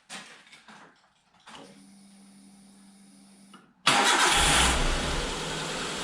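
A few faint clicks and a faint steady hum. Then, about four seconds in, the 2004 Suzuki Alto's 1.1-litre 16-valve four-cylinder engine starts after standing for weeks: a loud flare for under a second, settling into a steady idle that sounds smooth, "sweet as a nut".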